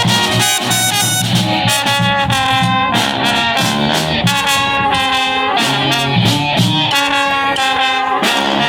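Brass band playing live: trumpets and trombones carry the tune over a low bass line and a steady drum beat.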